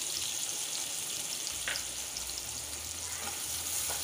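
Sliced onions sizzling in hot oil in a kadai, with a few light clicks as the spatula stirs them against the pan.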